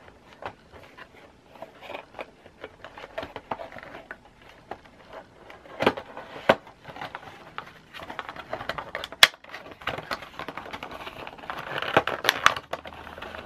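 A cardboard Funko Pop box being handled and opened by hand: fingernails scratching and picking at the flap, card scraping and tapping, with a few sharp clicks. The rustling grows denser near the end as the box is opened.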